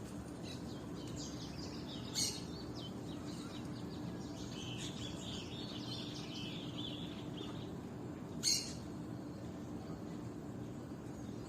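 Small birds chirping and twittering in quick, overlapping notes, thinning out after about seven seconds. Two brief, louder sharp sounds stand out, one about two seconds in and one near the end, over a steady low hum.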